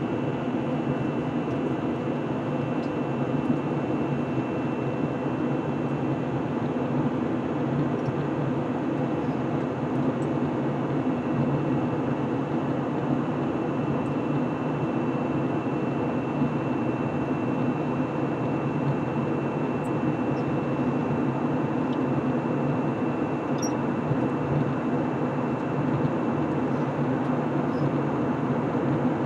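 Steady cabin noise of an Airbus A321 in flight, heard from inside the cabin: a constant hum of engines and airflow with a thin high whine.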